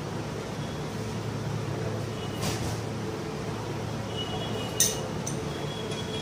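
Metal engine parts being handled on a workbench: a sharp click just before five seconds in and a few faint short high rings, over a steady low hum.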